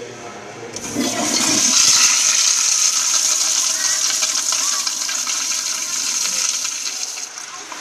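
Kohler commercial toilet flushing: a sudden rush of water starts under a second in, runs loud and steady, and dies away shortly before the end.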